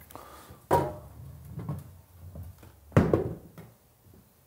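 Two knocks on a wooden table, one under a second in and another about three seconds in, with faint low handling noise between.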